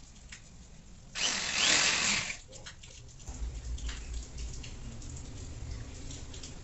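Buildskill BED1100 300 W corded electric drill, fitted with a screwdriver bit, driving a screw through a metal hook rack into a wall. It runs loudly for about a second, then runs on more quietly and steadily.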